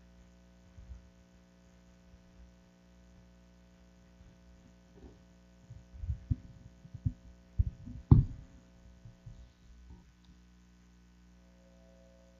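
Steady electrical mains hum on the church microphone line, with a few low thumps and knocks between about six and nine seconds in; the loudest comes near eight seconds.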